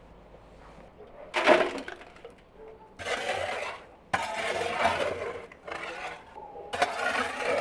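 A long-handled metal shovel scraping and clinking across the brick floor of a wood-fired oven, raking out embers and ash, in four separate strokes.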